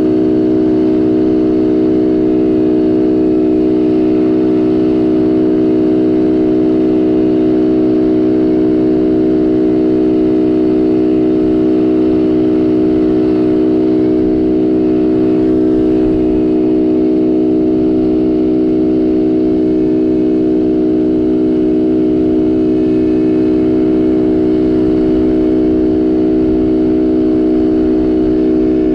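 Small 50cc youth quad engine running at a steady, unchanging pitch, held at constant throttle.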